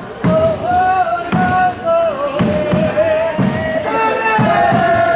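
Japanese festival music: a high flute melody that steps and wavers in pitch, played over steady drum beats.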